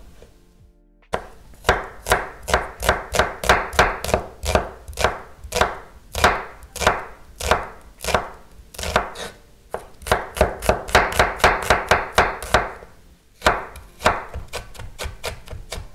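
Kitchen knife slicing onions on a wooden cutting board. The blade strikes the board in a quick, steady run of about three to four cuts a second, starting about a second in. There is a brief pause near the end, then lighter, faster cuts.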